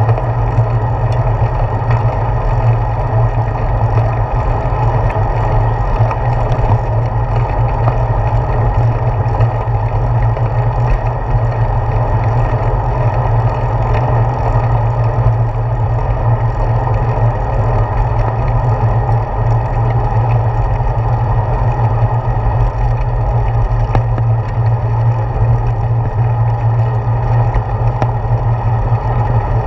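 Steady low rumble of a bicycle riding along a paved path, heard through a handlebar-mounted GoPro Hero 4: wind on the camera and vibration from the tyres and the path shaking the mount.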